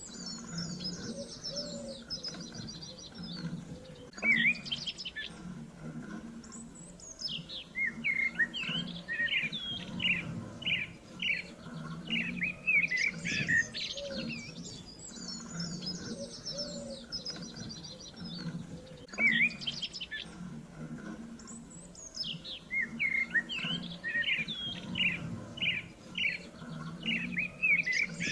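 Songbirds chirping and singing in quick, high chirps and trills. The same passage repeats about every fifteen seconds, as in a looped recording.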